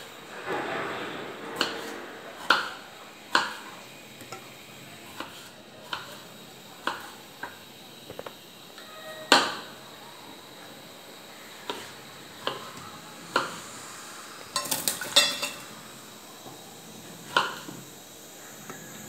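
Kitchen knife cutting small potatoes on a wooden chopping board: sharp, irregular knocks of the blade hitting the board, about one a second. About fifteen seconds in comes a brief rapid clatter.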